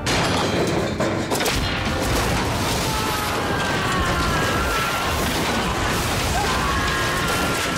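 A sudden loud crash that opens into a dense, sustained din with another sharp hit a little over a second in, with faint music-like tones under it.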